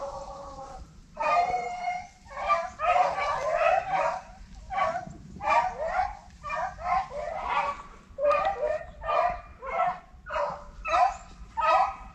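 Rabbit hounds giving tongue on a rabbit's trail: a run of yelping, baying calls about once a second, sometimes overlapping.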